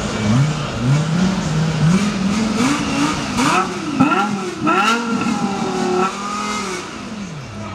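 Lexus LFA's 4.8-litre V10 revved in quick blips, about two a second, each climbing a little higher, then several sharper, higher revs about three to five seconds in and a longer held rev, before dropping back to idle near the end.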